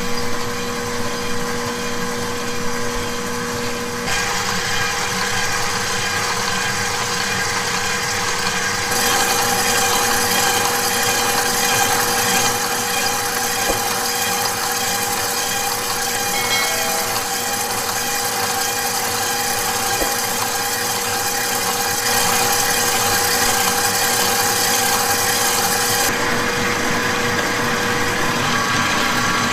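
Electric stand mixers running steadily as they beat cake batter and whip a white mixture: a KitchenAid Professional stand mixer and a larger commercial planetary food mixer. It is a continuous motor hum with a steady whine, and its pitch and brightness change a few times.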